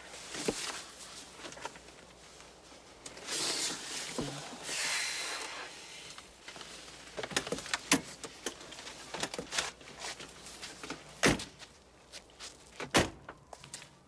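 Passengers getting out of a car: rustling, a run of small clicks and knocks, then two car doors slammed shut about a second and a half apart near the end.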